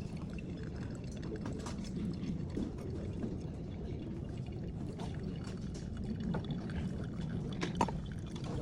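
Liquid pouring steadily in a manual coffee brew, with a sharp clink about three-quarters of the way through.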